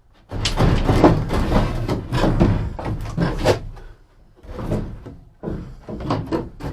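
A wooden 2-by-4 being worked into place in a roof frame: a run of irregular knocks, bumps and scraping of wood against wood, with short lulls about four and five and a half seconds in.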